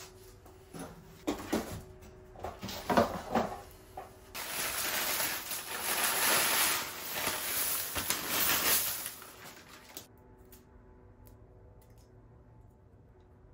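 A few knocks and rustles as plastic seed trays are handled, then, from about four seconds in, dry Rocky Mountain maple seeds poured out of a paper bag into a plastic seed tray: a steady dry rustling pour with paper crinkle, lasting about five seconds and stopping suddenly. Afterwards only a few faint clicks as the winged seeds are picked at by hand.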